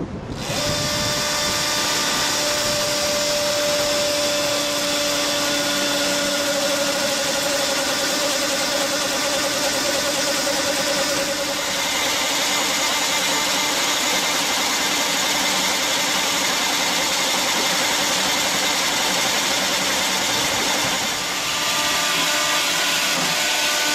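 Chainsaw held in a guide frame running steadily as it cuts through a large log, with a steady whine. The pitch changes about halfway through and again near the end.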